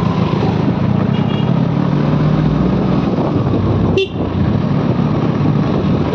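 Steady engine hum of a road vehicle moving through street traffic, with two brief high horn toots in the first second and a half and a sharp click about four seconds in.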